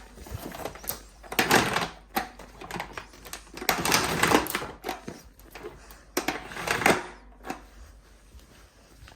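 Handling noise: three bursts of rustling and scraping, each about a second long, with scattered clicks and knocks between them.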